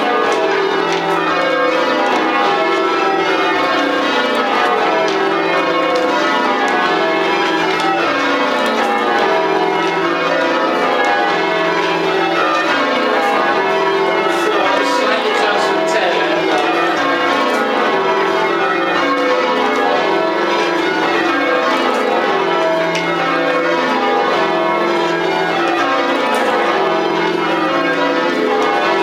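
A ring of ten full-circle church bells rung in rounds: each bell strikes in turn from the highest to the lowest, so a descending scale of ten notes repeats over and over at an even pace, heard from the ringing chamber beneath the bells.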